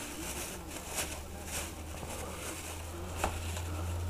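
Plastic shopping bag rustling and crinkling as hands handle it, with a few sharper crackles, over a steady low hum.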